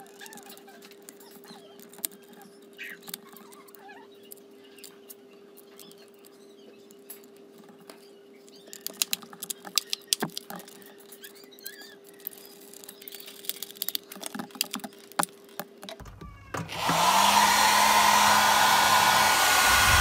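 Quiet plastic clicks and taps from handling the hair dryer's casing, then, about three and a half seconds before the end, the repaired hair dryer is switched on: its motor spins up with a short rising whine and settles into a steady rush of blown air, a test that it runs again.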